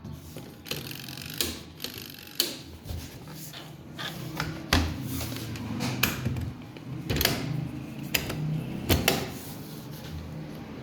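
Washing machine running, a low motor hum under irregular knocks and clatters from the turning drum and its load.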